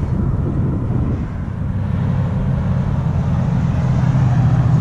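Exhaust rumble of a Chevy Silverado's swapped 6.0 L V8, fitted with a Texas Speed 223/226 cam and a Borla XR-1 muffler, growing louder as the truck approaches.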